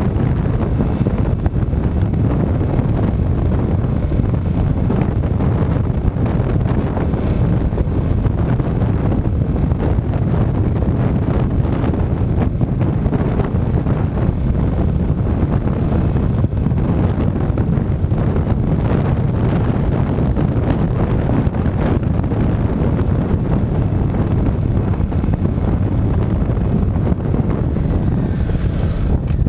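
Loud, steady wind rumble on the microphone of a handlebar-mounted camera on a moving Yamaha FZ-07 motorcycle, with the bike's parallel-twin engine running beneath it.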